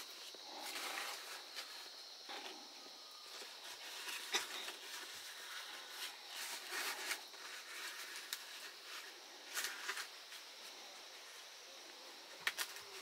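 Large fresh green leaves rustling and crackling as they are folded and pinned together with thin sticks into a leaf basket, with scattered sharp clicks of the leaves being handled.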